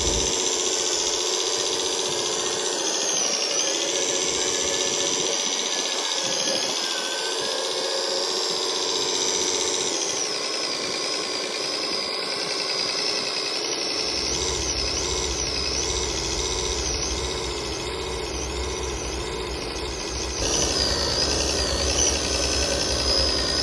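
Motors and gears of radio-controlled model construction machines running, a high whine wavering up and down in pitch with the throttle; a low hum joins about halfway through.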